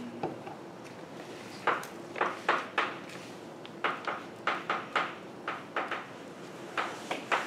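Chalk tapping and scratching on a blackboard as a formula is written: a run of sharp clicks, several a second, in short clusters with brief gaps between strokes.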